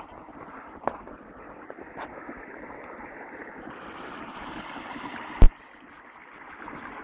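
Steady rustling noise from wind and handling on a phone microphone, with one sharp, very loud bang about five and a half seconds in and two faint clicks earlier.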